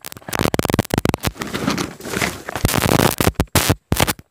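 Close crackling and rustling of a hand mixing cooked rice with curry in a plastic bowl, in quick, irregular crackles.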